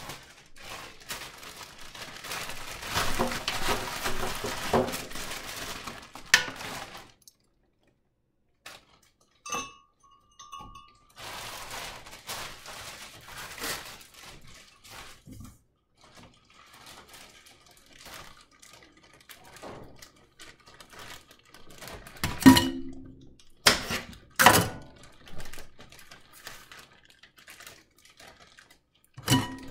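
Kitchen handling clatter as cut fruit is loaded by hand into a glass blender jar: scattered knocks and clinks of fruit, glass and countertop, with a few loud sharp knocks in the last third.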